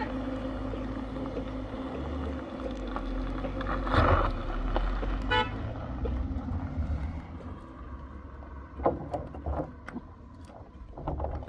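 Motor vehicle engine running with a low, steady hum, and a short horn toot about five seconds in. The engine sound dies down in the second half, leaving a few sharp knocks.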